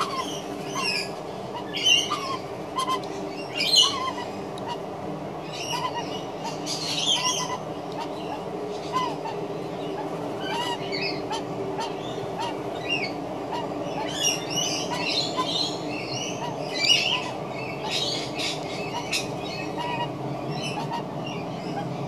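Australian magpie making strange sounds: a low, continuous droning warble with short high chirps and squeaks scattered through it. The loudest notes come about two, four and seventeen seconds in.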